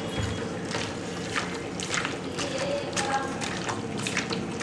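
Raw chicken pieces squelching as hands knead them into a wet marinade in a steel bowl: irregular wet squishes over a faint steady hum.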